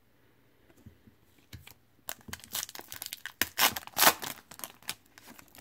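Foil wrapper of a 2014 Panini Prizm football card pack being torn open and crinkled by hand: a run of irregular crackles starting about two seconds in, loudest a little past the middle.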